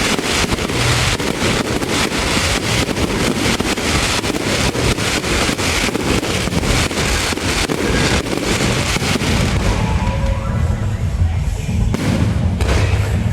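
Fireworks going off as a rapid crackle of many closely spaced bangs. The crackle thins out about ten seconds in. Music plays underneath.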